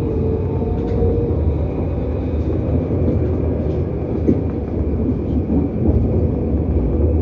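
Grenoble line A tram running, a steady low rumble of wheels on rails and running gear heard on board, with a faint tone of wheel squeal in the first second.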